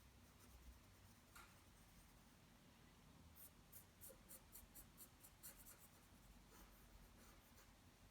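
Faint scratching of a drawing tool stroking across paper as a sketch is shaded: a single stroke, then a run of quick short strokes at about three or four a second, and a few more near the end.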